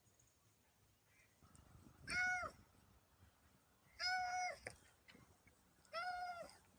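A domestic cat meowing three times, about two seconds apart, each meow a short arched call.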